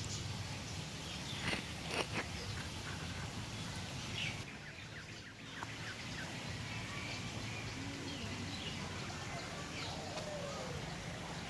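Outdoor background noise with a steady low hum and faint bird chirps, and two short knocks about one and a half and two seconds in.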